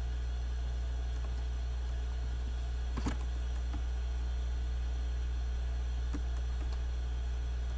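Steady low electrical hum in the recording, with one sharp click about three seconds in and a fainter click about six seconds in.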